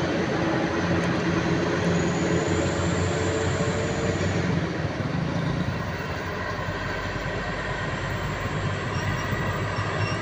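Heavy trucks' diesel engines running as they pass on the road, with a car among them: a steady low engine drone over tyre and road noise. It eases off about halfway and builds again near the end.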